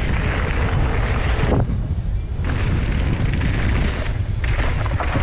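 Wind roar on a helmet-mounted camera's microphone while a downhill mountain bike runs at speed over dirt and gravel, with the rumble of the tyres. The hissy part of the noise swells and fades in several surges.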